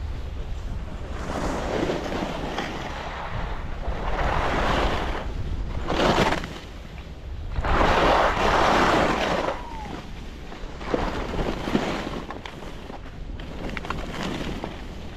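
Skis hissing and scraping over packed snow through a run of turns, each turn a swell of noise, about six in all, the loudest a little past halfway. Wind buffets the microphone underneath.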